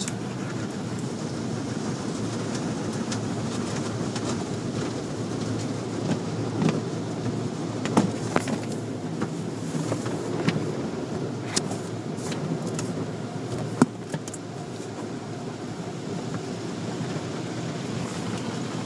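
An automatic car wash heard from inside the car: a steady low rushing rumble of water and soap being sprayed and worked over the body, with scattered knocks and taps, the sharpest about three quarters of the way through.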